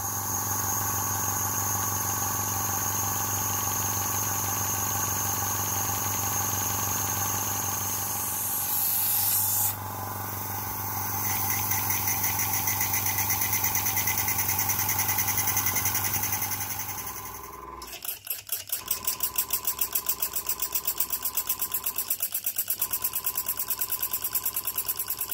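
Small brass twin-cylinder oscillating steam engine running smoothly, its cylinders exhausting in a fast even rhythm of several puffs a second. A steady mechanical hum runs under it and stops about two-thirds of the way through, leaving the puffing on its own.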